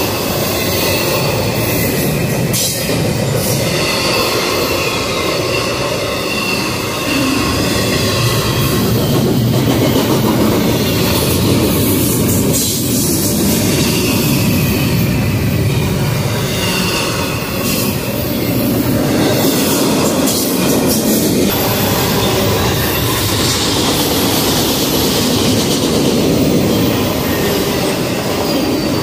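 Double-stack intermodal container train passing close by: a steady, loud rush and rattle of the well cars' wheels on the rails, with thin high tones from the wheels coming and going.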